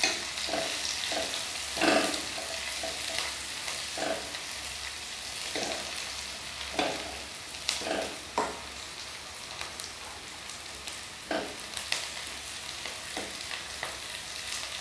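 Chopped onions and green chillies sizzling in ghee in a kadai as they brown, stirred with a steel spoon that scrapes the pan in short strokes about every one to two seconds.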